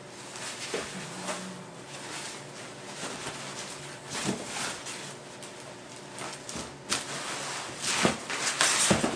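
Packing wrap rustling and crinkling as it is pulled and handled inside a cardboard box, with the box's cardboard scraping now and then; busier and louder near the end as a wrapped item is lifted out.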